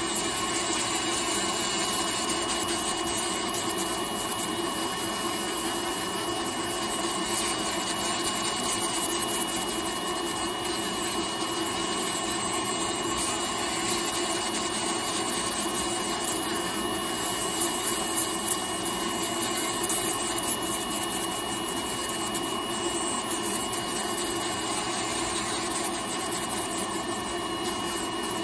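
Podiatry electric nail drill running steadily with a constant high whine, its rotary burr grinding down a thick toenail.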